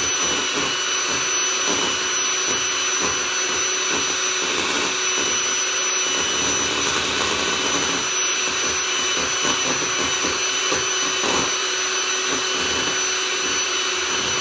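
Electric hand mixer running steadily, its beaters whipping heavy cream in a glass bowl as the cream begins to thicken. A thin, steady high whine sits over the motor's noise.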